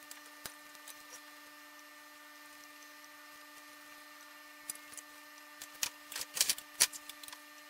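Sharp metal clicks and snaps of hand pliers working at an old ceramic power resistor's solder lugs and mounting: one click about half a second in, then a cluster of them in the second half, the loudest two near the end. A faint steady hum runs underneath.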